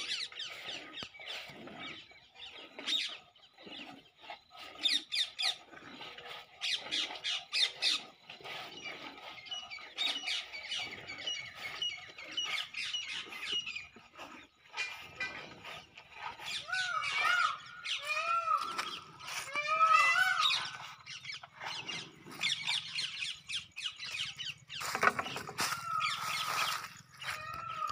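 Water buffalo being hand-milked: milk squirting into a steel pail in quick rhythmic spurts, about two a second. Birds chirp in repeated arching calls partway through.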